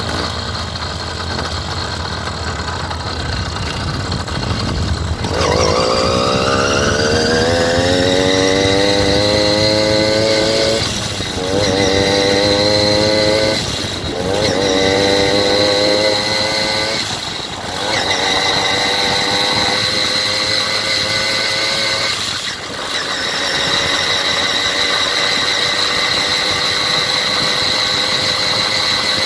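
Small vehicle engine idling at a stop, then revving up to pull away. Its pitch climbs, drops and climbs again three times as it shifts up through the gears, then holds steady at cruising speed.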